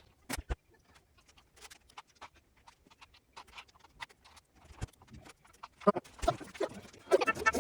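Scattered clicks and taps of hard objects being handled, with two sharp knocks about half a second in, then a busier clattering and rustling that grows louder near the end.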